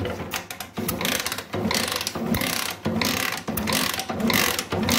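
Honda Shine motorcycle kick-starter kicked about six times in quick succession, turning the single-cylinder engine over with the spark plug out and the ignition off. Compression is too weak to push air past a thumb held over the plug hole, which the mechanic takes as the engine having lost its compression.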